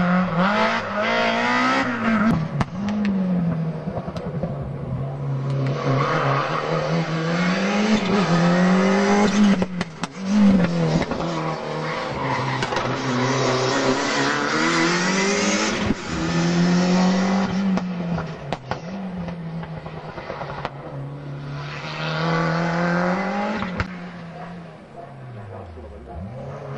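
Rally car engines revving hard, climbing in pitch and dropping back again and again as they change gear, as cars including a BMW E30 M3 and a Ford Escort come through one after another. The engines fade somewhat near the end.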